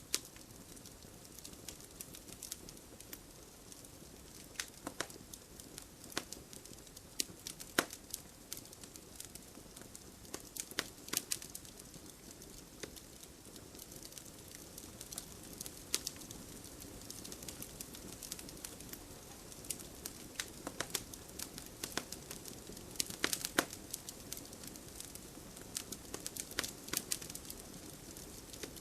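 Wood fire burning in a fireplace, with a steady low hiss and irregular sharp crackles and pops, bunched in short clusters a few times.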